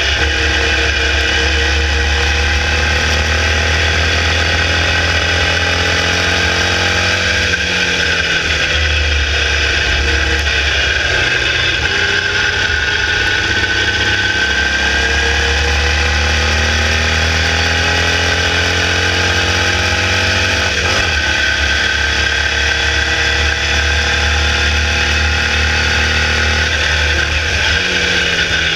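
Air-cooled 1200cc Volkswagen flat-four engine of a Formula Vee race car running hard at racing speed, heard onboard. Its pitch falls twice, about seven seconds in and again past twenty seconds, and climbs back each time, under a constant rushing hiss.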